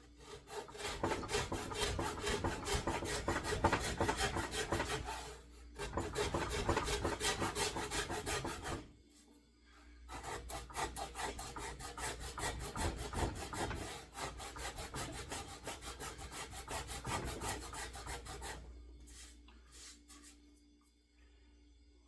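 Shinto saw-blade rasp being stroked rapidly back and forth over a wooden axe handle, rasping off wood. It goes in runs of quick strokes with two short pauses, the first around five seconds in and the second around nine, and stops near the end.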